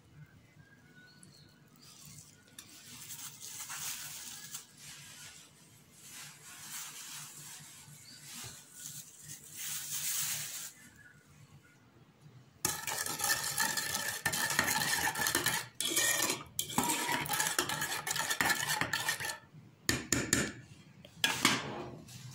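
Spoon stirring and scraping against a stainless steel bowl, ringing metallically, after quieter handling at the start; near the end, a few clinks as a metal lid is set on the bowl.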